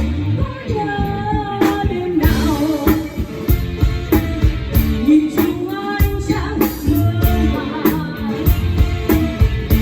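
A song with a singing voice over a steady drum beat and heavy bass, played loud through a sound system as a demo.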